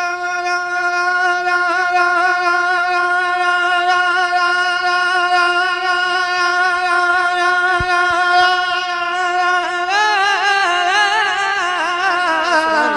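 A man's voice sustains one long sung note without words for about ten seconds, then breaks into wavering, ornamented melodic runs near the end, in the style of a naat recitation.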